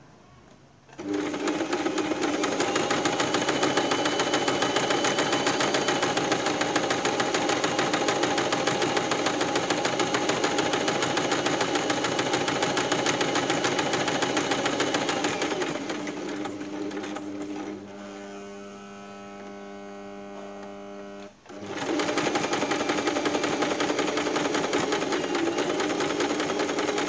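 Portable electric sewing machine running, stitching a decorative pattern stitch along a fabric edge. It starts about a second in and runs steadily, eases to a lower, steady hum for a few seconds after the middle, stops for a moment, then runs again.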